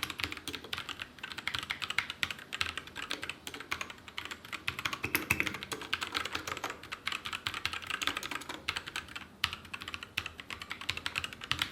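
Typing on a Royal Kludge RK61 mechanical keyboard: a rapid, continuous stream of key clicks, with a brief pause about nine seconds in.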